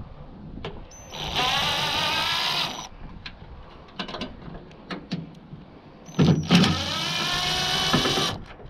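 Power drill running in two bursts of about a second and a half and two seconds, its whine rising as it spins up, with clicks and knocks between. It is likely backing screws out of a scrap microwave's casing.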